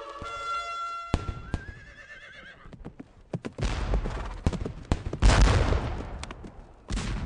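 Battle sound effects: a held musical note, then a horse whinnying, followed by scattered shots and heavy cannon fire. The loudest blast comes about five seconds in and another near the end.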